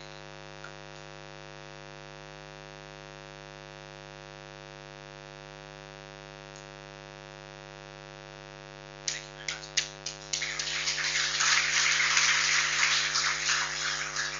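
Steady electrical mains hum for about nine seconds. Then a few scattered claps swell into a round of audience applause, which tapers off near the end.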